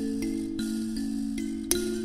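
Kalimba being plucked in a slow improvisation on a Hindu scale. Its metal tines ring over one another, a new note about every half second, with a sharper pluck near the end.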